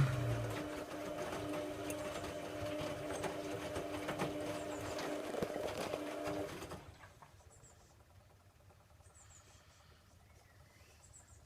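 Hoover Logic A3790 washing machine taking in water: the inlet valve buzzes under a steady rush of water, with a low thump at the start, and both cut off suddenly about seven seconds in.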